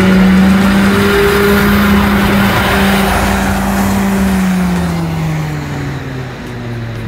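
A vehicle's motor running with a steady hum that falls in pitch about five seconds in.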